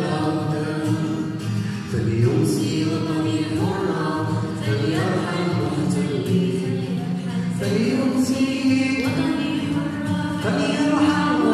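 A girl singing through a microphone, her voice holding long sung notes, with a man strumming a small stringed instrument as accompaniment.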